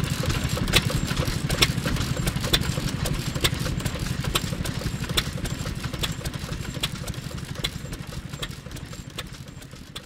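FIRST Type S.H 3 hp single-cylinder hopper-cooled petroleum stationary engine running, a fast steady low chuffing with a sharp click a little under once a second. The sound fades out near the end.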